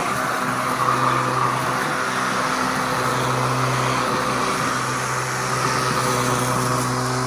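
Sun Joe 24V-X2-17LM 48-volt cordless electric lawn mower running steadily while mowing grass: a steady electric motor-and-blade hum with a hiss of cutting over it.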